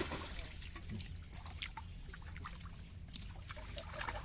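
Small splashes and drips of water in an aluminium basin holding live marble gobies, scattered irregularly over a steady low rumble.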